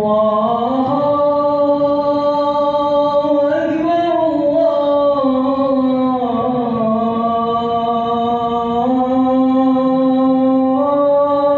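A man's voice chanting the adhan, the Islamic call to prayer, most likely its opening "Allahu akbar", sung solo in long held melismatic notes that slowly step up and down in pitch, with one short break for breath about four seconds in.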